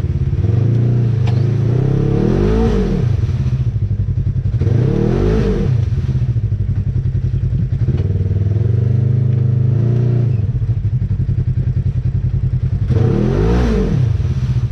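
Off-road side-by-side (UTV) engine running, revving up and dropping back three times: about two seconds in, about five seconds in and near the end.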